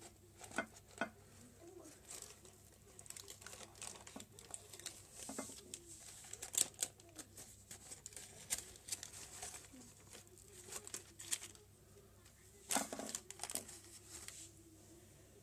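Baking paper crinkling and rustling as hands peel it away from a baked cake and lift the cake out of a glass dish, with scattered sharp ticks. A louder flurry of crinkling comes near the end.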